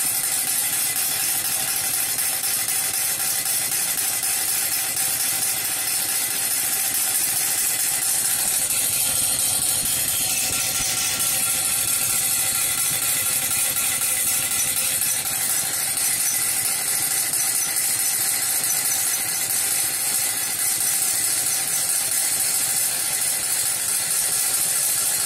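Wilesco miniature live-steam engine running fast and steadily: a continuous rapid mechanical rattle of the motion work with a high hiss over it.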